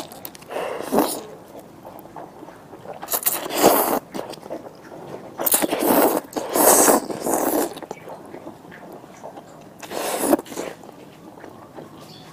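A person slurping instant noodles off chopsticks, in four long slurps with quieter chewing between them.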